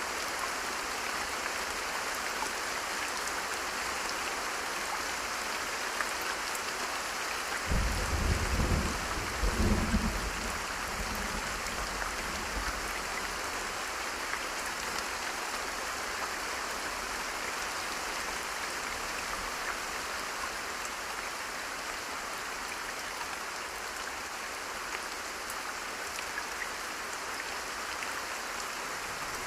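Steady heavy rain falling with an even hiss. A low rumble swells about eight seconds in and fades within a few seconds.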